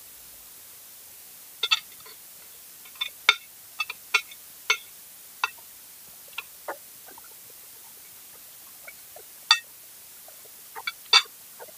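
Metal spoon and fork clinking and scraping on a ceramic plate while eating: short, sharp clicks coming irregularly, a few with a brief ring.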